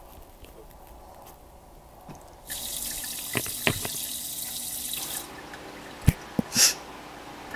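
A kitchen tap runs for close to three seconds, switched on and off abruptly, followed by a sharp knock.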